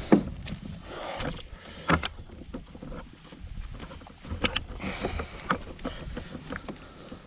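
Scattered knocks, taps and rustles as a bass is handled and pressed onto a plastic measuring board on the deck of a fishing kayak, with a sharp knock right at the start and a cluster of taps past the middle.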